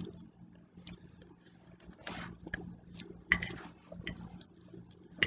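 Chewing and wet mouth sounds from a mouthful of broccoli, with short clicks of a fork against a plate.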